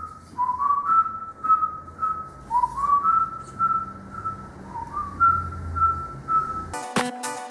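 A person whistling a simple tune: short notes that scoop up in pitch and hold, in a few repeated phrases. Near the end, electronic music with a drum-machine beat cuts in.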